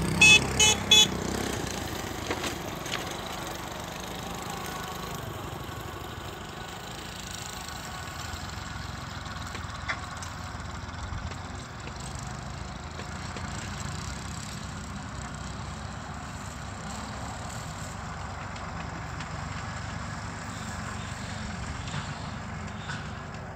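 An engine running steadily at idle, a low even hum. About half a second in come three short, loud, high-pitched beeps in quick succession.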